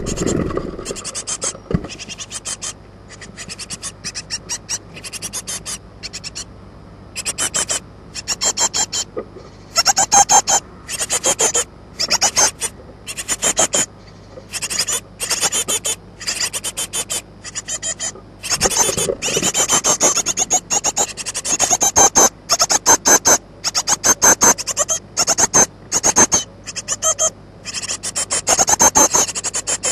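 Great tit nestlings, about two weeks old, stirring in the nest box: repeated short rasping bursts, each a quick run of scratchy pulses, coming every second or two.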